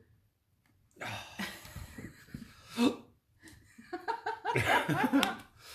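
A man breathing hard with a mouth burning from a Carolina Reaper chilli, with one sharp hiccup near the middle, brought on by the chilli's heat. Near the end comes a short run of laughter.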